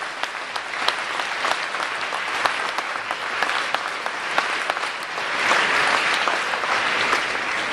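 An audience clapping, a dense patter of many hands that swells to its loudest about two thirds of the way through.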